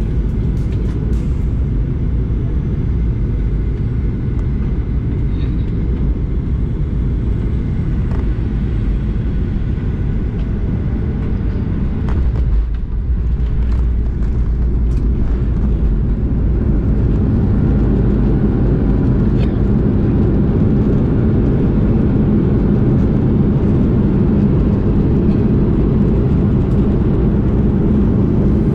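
Airliner cabin noise heard from a window seat through final approach and landing: a steady low rumble, broken briefly about twelve seconds in as the wheels touch down, then growing louder and heavier during the rollout on the runway.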